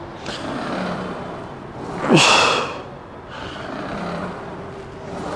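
A man breathing hard through leg press reps: a loud, forced exhale with a voiced sound falling in pitch about two seconds in, between softer, noisy breaths.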